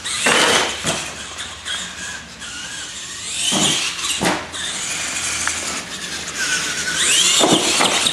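R/C monster truck running hard: a high motor whine that rises and falls with the throttle, with short bursts of tyre squeal and scrub about three times, once around a jump in the middle.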